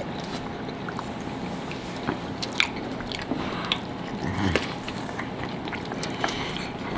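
Close-miked biting and chewing of red hot sausage dogs in soft buns: wet mouth sounds with scattered small clicks and crunches.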